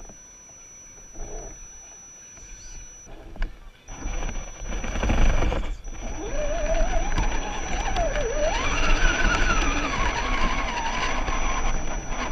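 Electric motor and gears of a radio-controlled scale crawler whining, the pitch rising and falling with the throttle as it drives over loose dirt and rock, with the noise of the tyres and chassis on the ground. Quiet for the first few seconds, then much louder from about four seconds in.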